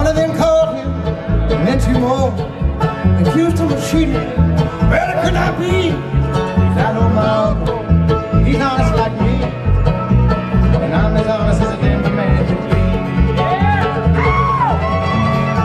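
Live bluegrass band playing, the acoustic guitar strummed and picked over a steady, pulsing bass beat, with sliding melody lines on top.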